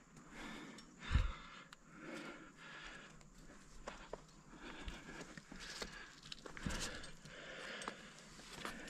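A rock climber breathing hard in and out while climbing a sandstone crack, a breath every second or so, with light scuffs and clicks of hands, shoes and gear on the rock. A dull thump about a second in, and a smaller one near seven seconds.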